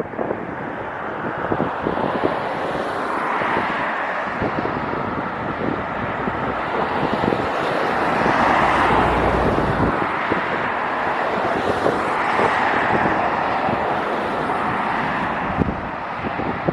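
Jet airliner engines giving a continuous rushing noise that swells gradually towards the middle, with wind buffeting the microphone.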